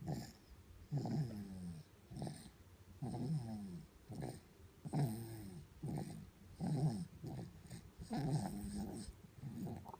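A sleeping baby snoring: a short snore with each breath, about one a second, each one dropping in pitch as it goes.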